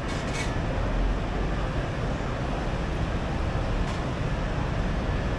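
Steady low rumbling background noise with no distinct events, with a faint brief hiss near the start and again near the end.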